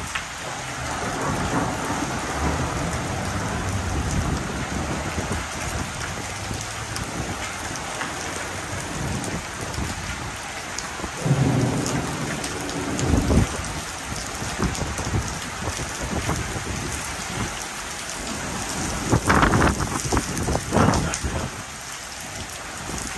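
Steady rain falling during a thunderstorm, with thunder rumbling low beneath it through the first half. Louder thunder breaks out about halfway through, and again in a cluster of sharp cracks near the end.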